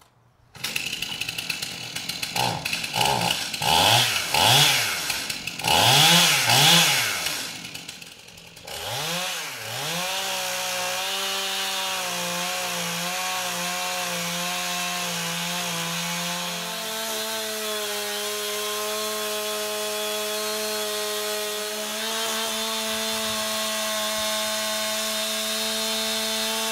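Stihl MS 291 chainsaw with a ripping chain, mounted in a Granberg mini mill. It comes in suddenly about half a second in and is revved up and down several times. From about ten seconds in it holds steady high revs under load as it rips lengthwise along the log.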